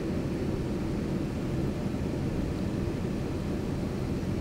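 Steady low engine and road rumble inside the cab of a Sunlight T58 diesel motorhome as it drives slowly through shallow floodwater.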